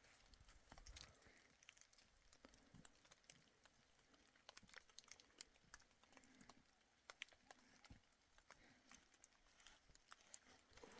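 Near silence with faint, irregular small clicks and ticks scattered throughout.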